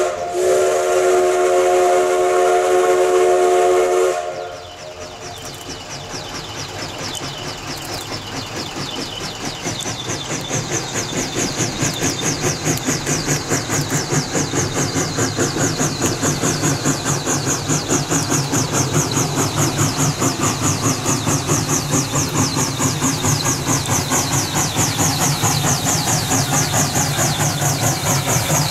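Steam locomotive's chime whistle holding a several-note chord that stops about four seconds in, followed by the locomotive's exhaust chuffing in a fast, even beat that grows louder as the train approaches.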